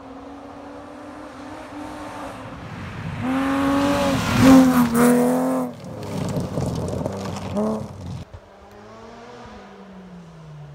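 Gravel rally car engine at full throttle, revving hard and breaking off at quick gear changes, loudest a few seconds in, with a rush of tyre and gravel noise after it. About eight seconds in the sound cuts to a quieter, more distant rally car whose engine note falls away.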